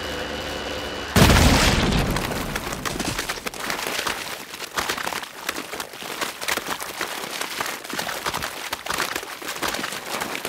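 Film sound effect of a giant tortoise being blown apart: a steady hum cuts off about a second in with one loud explosion. The blast fades over a couple of seconds into many scattered crackles and small impacts.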